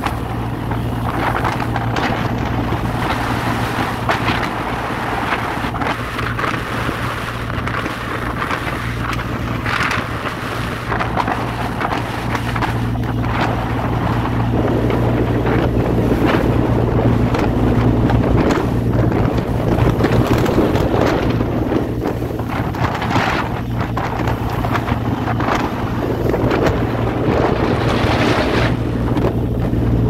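Fishing boat under way: its engine runs with a steady low drone, under wind buffeting the microphone and the hiss of the bow wave and spray, which swells and fades irregularly.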